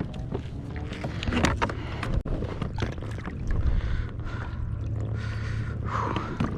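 Scattered knocks and handling noises in a kayak, over a steady low rumble.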